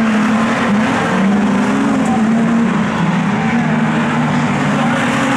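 A pack of sedan race cars running hard together: several engine notes overlap, each wavering up and down in pitch.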